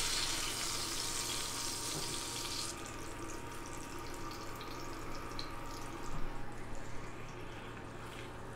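Ribeye steak sizzling in hot fat in a cast-iron skillet. The sizzle softens about three seconds in as the steak is lifted out of the pan, and a few light knocks come near the end.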